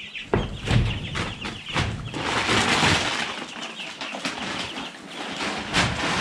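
A brooder full of two-week-old meat chicks peeping together, with wings flapping and shavings rustling. In the first couple of seconds, scattered knocks and rattles come from the brooder's wire-mesh lid being handled.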